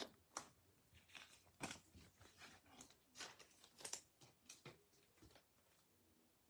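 Faint rustles and light taps of baseball trading cards being handled and laid down on a table: a string of short sounds, roughly two a second, that stop about five seconds in.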